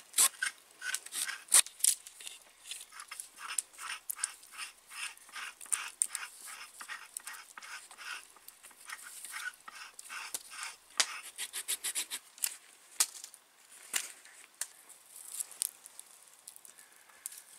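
Knife blade whittling a green stick: a quick, uneven run of short scraping strokes, several a second, thinning out near the end.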